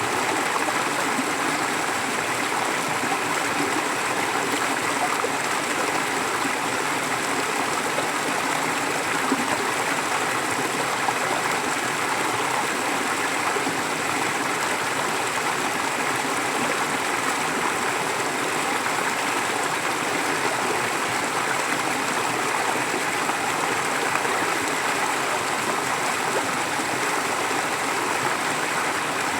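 A forest stream running steadily, a continuous even rush of flowing water.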